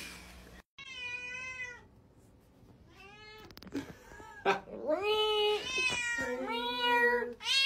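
Tabby cat meowing repeatedly: a run of drawn-out meows, about six in all, one after another. The later ones come louder and closer together.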